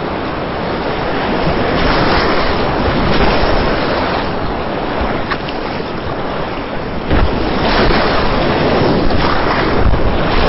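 Whitewater rapids rushing loudly around a kayak running through them, heard close up from the boat. Splashes surge louder in the second half as the bow and paddle strike the waves.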